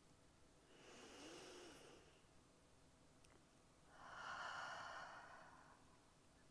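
A woman breathing slowly and audibly: one soft breath about a second in, then a longer, louder one about four seconds in.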